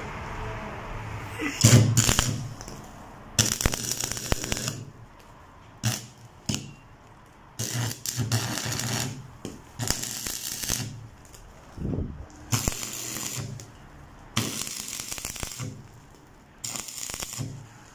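Stick welding a steel pipe elbow joint: the electrode arc crackles and sizzles in about nine short bursts of a second or so each, stopping and restarting between strikes as the joint is tacked. The first strike is the loudest.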